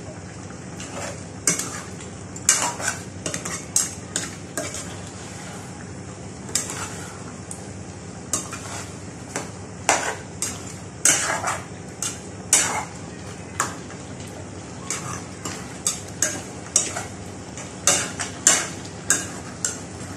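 A metal spoon stirs chicken pieces in a nonstick pot, making irregular scrapes and clinks against the pot, over a steady hiss of the chicken frying.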